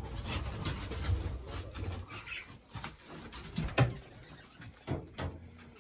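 English budgies chirping and chattering, with scattered clicks and knocks.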